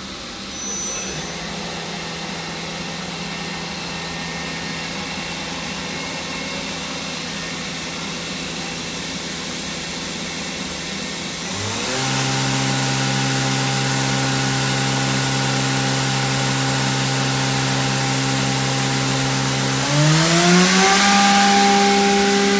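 Toyoda FA-550II horizontal machining center's gear-head spindle running with a steady whine. About halfway through it steps up to a louder, higher speed, and near the end it glides up in pitch and gets louder again.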